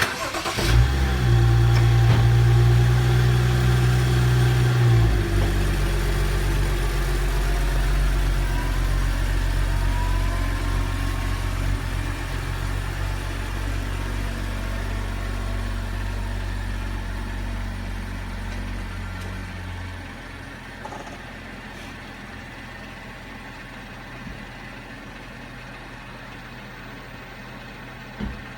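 BMW F30's engine running. It starts suddenly about half a second in with a strong low hum, which shifts to a lower, steadier note after about five seconds and fades noticeably near twenty seconds.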